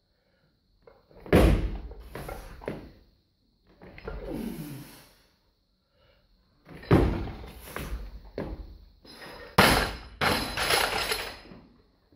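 Plate-loaded weightlifting barbell with bumper plates: heavy thuds and clanks of bar and plates as it is driven overhead in jerks and brought back down, and a hard breath from the lifter about four seconds in. The loudest crash comes near the end, when the bar is dropped to the floor and rattles as it settles.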